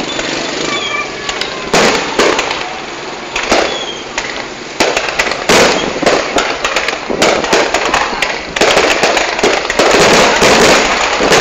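Fireworks display: repeated sharp bangs of bursting shells and crackling, growing denser and louder about two-thirds of the way through.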